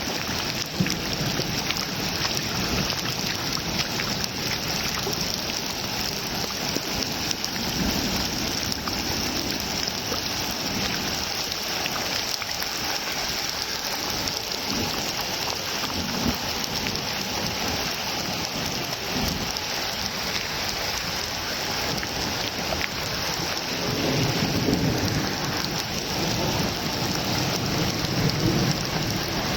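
Steady rain falling in a thunderstorm, with a low rumble of thunder swelling near the end.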